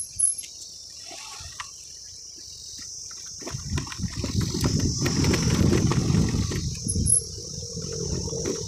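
Low rumbling wind and road noise from riding over a rough gravel road, faint for the first three seconds and then growing. A steady high insect buzz runs underneath.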